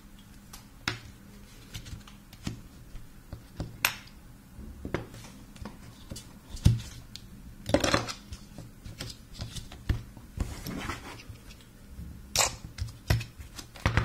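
Irregular clicks, taps and light scrapes of a metal precision screwdriver handle and a flexible extension being handled and pressed into the foam slots of a plastic tool case, with a few sharper knocks.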